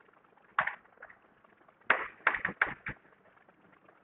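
Chalk writing on a blackboard: one short stroke about half a second in, then a quick run of sharp taps and scratches around two to three seconds in.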